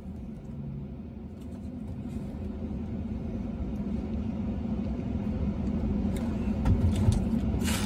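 Steady low rumble of an idling vehicle heard from inside the cabin, growing slightly louder, with a few faint clicks and a brief rustle near the end.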